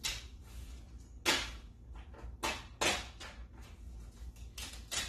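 Adhesive tape being torn off and pressed over a paper sheet on the wall: several short rasping rips with paper rustling.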